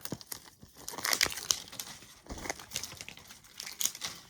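Plastic wrapping crinkling and tearing in irregular crackles as a toy capsule's wrapped pieces are unwrapped by hand.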